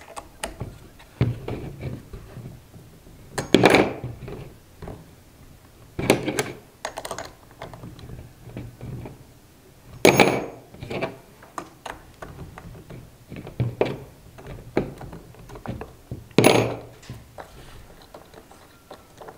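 Scattered clicks, taps and knocks of plastic and metal parts being handled as the two-prong plastic blade is taken off a cordless grass trimmer's head with a small L-shaped wrench. About four sharper knocks stand out among the lighter clicks.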